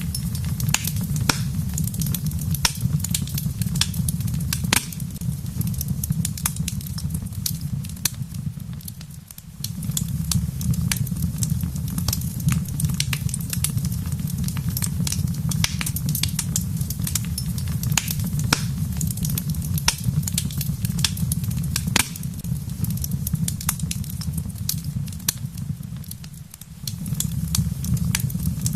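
Wood fire crackling in a fireplace: frequent sharp pops and snaps over a steady low rumble, which dips briefly twice, about nine seconds in and again near the end.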